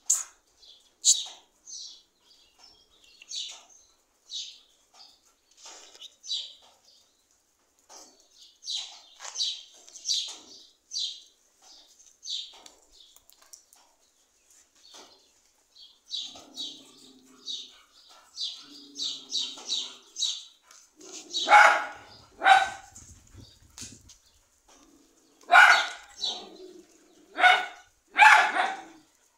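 Dogs barking in short calls, with a run of louder barks in the last several seconds.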